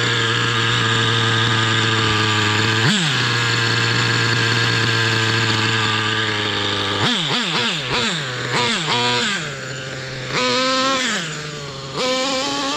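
Pro 70BX nitro engine of a Thunder Tiger EK4 S2 RC monster truck idling steadily, its low-speed needle just richened, with one quick throttle blip about three seconds in. From about seven seconds it is revved in a string of short blips, then twice in longer revs as the truck pulls away.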